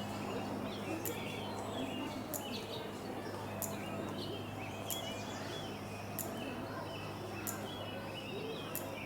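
Small birds chirping in quick, short calls over a steady low background hum, with a sharp tick about every second and a quarter.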